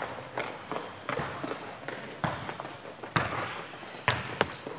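Basketball bouncing on a gym floor in irregular thuds during play, with short high sneaker squeaks on the court surface, the loudest near the end.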